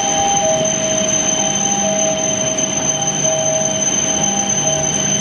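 Hokuriku Shinkansen high-speed train rolling slowly into the platform to stop: a steady rush of running noise with high whines and on-and-off mid-pitched whining tones.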